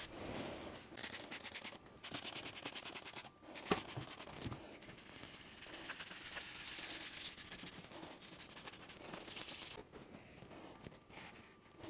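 Gloved hand scrubbing and wiping the grimy base of a milling machine, quick back-and-forth rubbing strokes that turn to a steadier rub in the middle, with one sharp tap a little under four seconds in.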